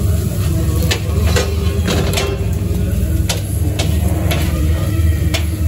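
Metal spatulas knocking and scraping on a flat steel griddle: sharp metallic clinks at irregular intervals, several a second at times, over a steady low hum.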